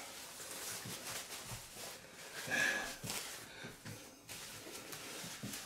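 Rustling and crinkling of white wrapping being pulled and handled as a figurine is unwrapped, with a louder crinkle about halfway through.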